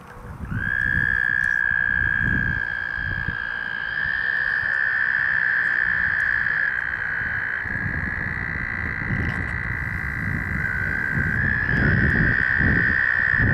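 American toads trilling: long, steady high-pitched trills from several males that overlap, the first starting about half a second in and others joining at slightly different pitches. This is the males' breeding call at a mating pond.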